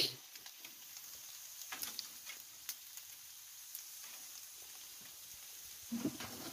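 Macaroni and meat patties frying on a large metal baking tray over a gas stove: a faint, steady sizzle with scattered crackles, and a few clicks and scrapes of a metal spatula against the tray.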